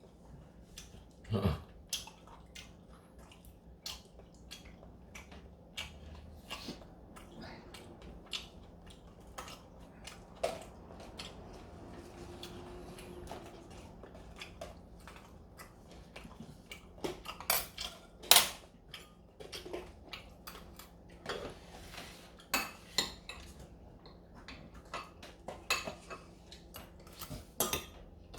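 Cutlery clinking and scraping against dishes while people eat, in irregular sharp clicks; the loudest comes about eighteen seconds in.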